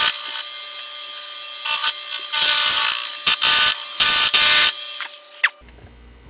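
Milling machine cutter taking cuts across a steel block: a steady high whine with repeated loud hissing surges as the cutter bites the metal. It stops about five and a half seconds in, leaving a low hum.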